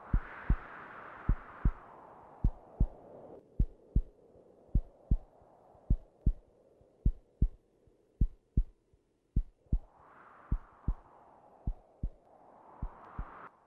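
A slow, steady heartbeat sound effect: deep paired thumps, lub-dub, a little more than a second apart. A rushing hiss swells and fades at the start, swells again about ten seconds in, and cuts off suddenly near the end.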